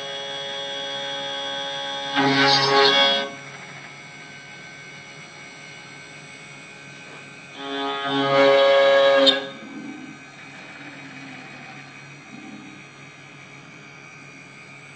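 Background music of held instrumental notes, with two louder passages, one about two seconds in and another around eight seconds in.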